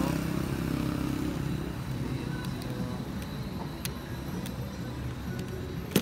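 Low engine rumble of a motor vehicle, fading after the first two seconds, with a few light clicks and one sharp click near the end.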